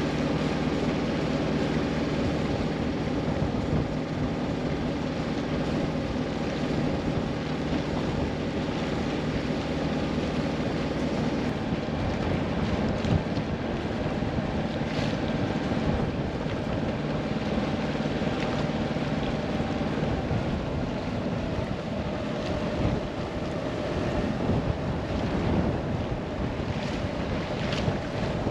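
Sailboat's inboard engine running steadily under way, with wind buffeting the microphone and water washing along the hull. The wind gusts grow stronger over the last several seconds.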